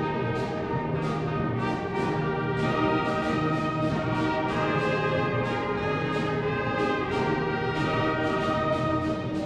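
Orchestral music led by brass, horns and trombones, playing sustained chords with a steady beat.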